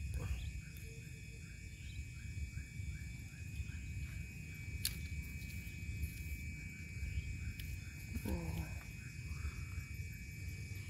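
Night insects holding a steady high-pitched drone, with a faint chirp repeating about three times a second over a low rumble. A single click comes about five seconds in.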